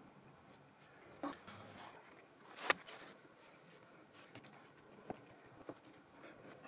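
Faint handling sounds of paintbrush and paper work on a tabletop painting: soft rustles and light taps as a sheet is laid over the wet paint and rubbed down with a cloth, with one sharp click about two and a half seconds in.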